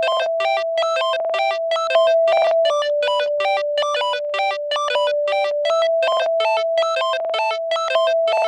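Synthesizer intro music: quick, evenly repeated keyboard notes over a held note that steps down in pitch about a third of the way in and back up about two-thirds in.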